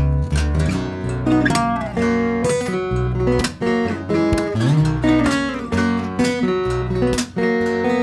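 Solo steel-string acoustic guitar played fingerstyle, with melody notes picked over a recurring bass note pattern. A sliding note rises about halfway through.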